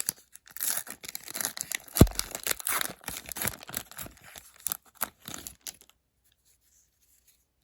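Hockey card pack wrapper being torn open and crinkled, with one sharp thump about two seconds in. The rustling stops about six seconds in.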